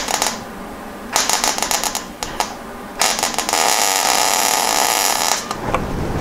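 MIG welder arc crackling on thin floor-pan sheet steel in three runs: a brief one at the start, a choppy one of about a second near one second in, and a steadier run of about two and a half seconds from three seconds in. These are short stitch welds laid a little at a time on a patch over rusted, thin metal, with the welder's voltage turned way down.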